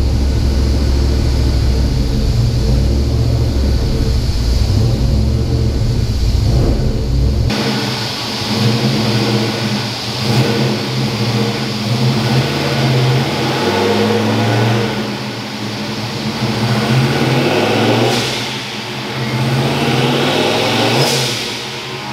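Turbocharged 331 small-block Ford V8 in a Fox Body Mustang revving in rising and falling sweeps. It is heard first as a deep rumble inside the cabin, then from outside the car after a sudden change about seven seconds in.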